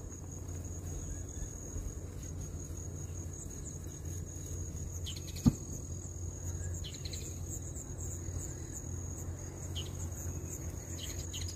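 Steady high-pitched insect chirring from the marsh, with a few short bird chirps scattered through it and a single sharp click about five and a half seconds in.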